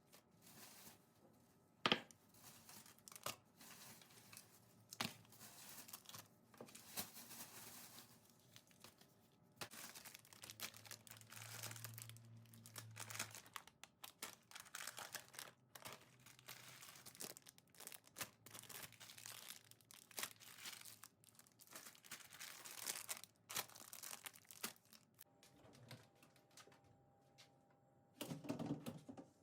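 Crinkling and rustling of handled material, broken by many light clicks and knocks, with a brief low hum about ten seconds in.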